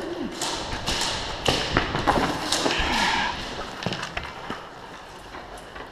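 Irregular knocks, taps and clatter from an airsoft game in a concrete hall, busiest over the first four seconds and then quieter.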